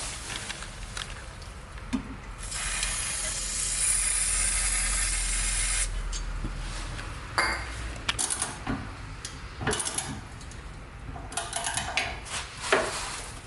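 A steady spray hiss lasting about three and a half seconds, starting a couple of seconds in. It is followed by a series of sharp metallic clinks and knocks from tools being handled on a car's rear wheel hub.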